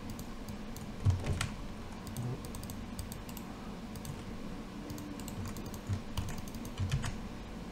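Scattered clicks from a computer mouse and keyboard as an IP address is copied and entered, with a few louder clicks about a second in and near the end.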